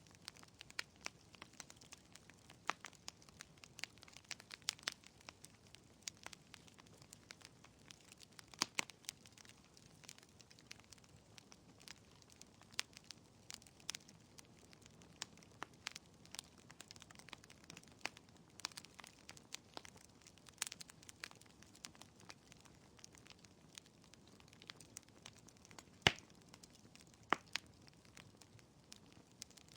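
Wood fire in a fireplace crackling: a continuous scatter of small irregular snaps and pops, with a few louder pops, the loudest about 26 seconds in.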